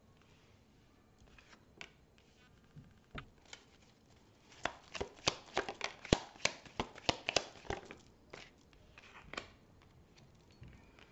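Tarot and oracle cards being handled on a table: scattered taps, then a quick run of card snaps and slaps about halfway through, then a few more taps.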